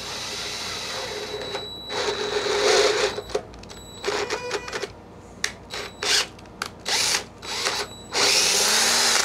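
Cordless drill with a 1/4-inch bit drilling out a stripped M6 bolt hole in the aluminium of a Honda GCV160 mower engine, to make room for a Helicoil insert. It runs steadily at first, then in a series of short trigger bursts, the last and loudest near the end.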